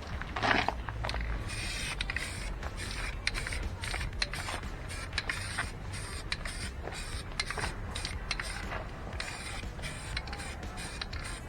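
Aerosol can of etching primer spraying in short hissing passes, broken up by clicks and knocks of the can being handled, with a louder clatter about half a second in.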